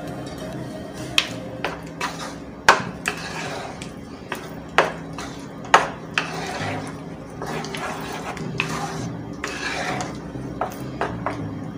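A spoon or spatula scraping through thick semolina halwa and knocking against a non-stick kadhai as it is stirred, with several sharp clinks scattered through. Light background music plays underneath.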